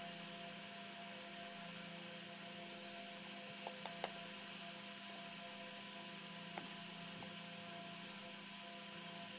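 A steady electrical hum with a few fixed tones over faint hiss. Three sharp clicks come close together about four seconds in, and a lighter click follows a few seconds later.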